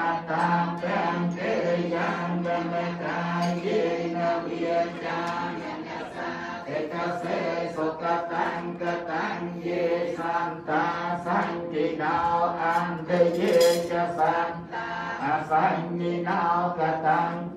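A group of Buddhist worshippers chanting a prayer together, the voices continuous and rhythmic, with a low held note under the first few seconds.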